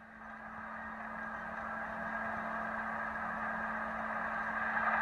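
Steady road and engine noise inside a moving car, with a steady low hum under it, fading in and growing slowly louder.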